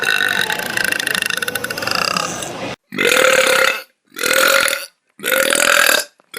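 Human belching: one long, drawn-out belch with a fast flutter running through it for nearly three seconds. Three shorter, loud belches of about a second each follow in quick succession.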